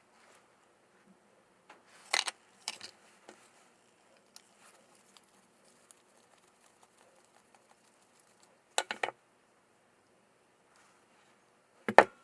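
Short clusters of clicks and light knocks as small parts and tools are handled at a workbench: a few about two seconds in, another cluster about nine seconds in, and the sharpest just at the end.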